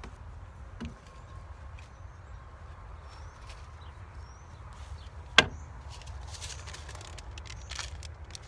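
One sharp knock about five and a half seconds in, by far the loudest sound, with a smaller thud about a second in, over a steady low rumble and soft rustling.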